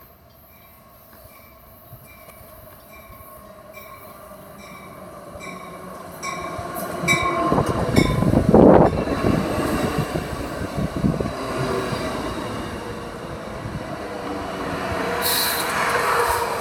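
Amtrak passenger train approaching and rolling past, growing louder and loudest about eight seconds in, with a high wheel or brake squeal near the end. A regular ticking, about two a second, runs under the first half.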